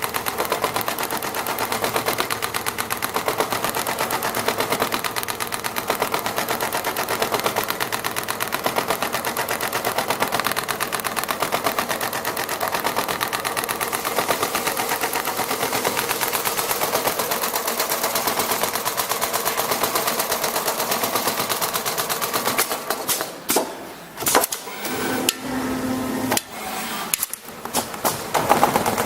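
CNC computerized sewing machine stitching at high speed: a fast, even mechanical clatter of the needle. About 23 seconds in it turns stop-and-start, with short pauses between bursts of stitching.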